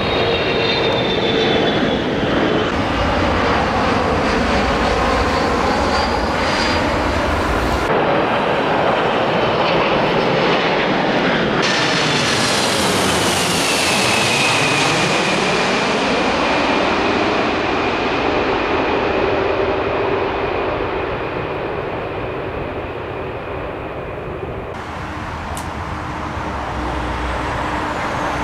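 Jet airliners' turbofan engines passing low overhead in a series of cuts. About halfway through, a four-engine Boeing 747 passes directly overhead, its high engine whine dropping in pitch as it goes by. Near the end the engine noise is quieter and more distant.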